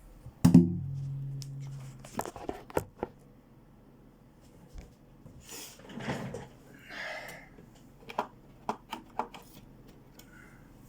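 Acoustic guitar being handled: a sharp thump on the body about half a second in sets the low strings ringing briefly, followed by scattered clicks, knocks and rustling.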